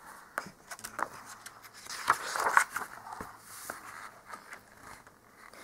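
A page of a picture book being turned by hand: paper rustling and sliding, with a few light taps and clicks, loudest about two seconds in.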